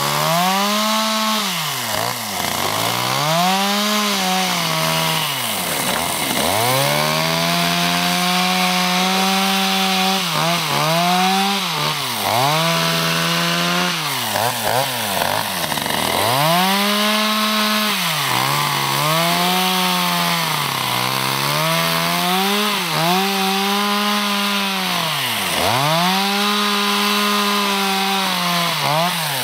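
Two-stroke Stihl chainsaw cutting through ice, its engine speed rising and falling over and over as the bar works through the cut, sagging sharply every few seconds before revving back up.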